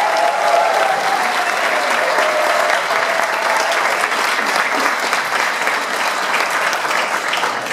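Theatre audience applauding steadily, with some cheering voices in the first few seconds.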